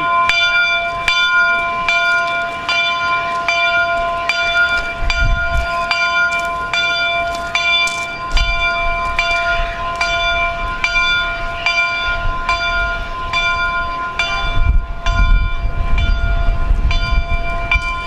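The large locomotive bell on LNER A4 60010 Dominion of Canada swinging and ringing steadily, about two strokes a second, each stroke sounding the same clear bell tone. Near the end the strokes stop and the ringing dies away.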